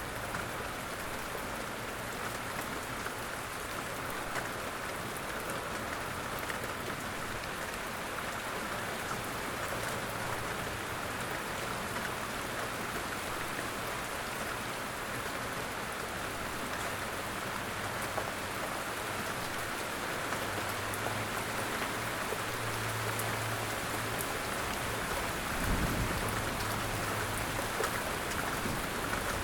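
Light rain falling steadily on the forest, an even hiss of many small drops pattering. In the second half a faint low hum sits under it, and a single dull thump comes near the end.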